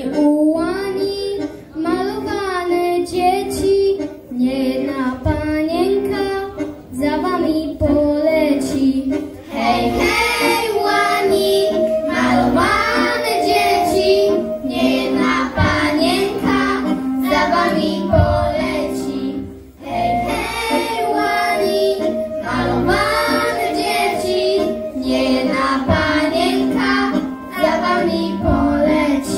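A small group of young children singing a patriotic song into microphones over a recorded backing track, phrase after phrase with short breaths between lines.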